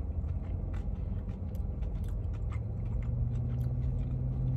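Close-up chewing of a crispy fried chicken nugget: scattered small crunching clicks over the steady low rumble of a car interior. A steady low hum comes in about halfway.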